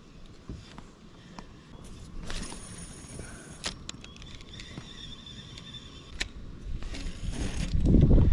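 Fishing reel and rod being worked during a cast and retrieve: whirring line and reel noise in two stretches, with scattered small clicks of handling. A dull low thump or rumble comes near the end.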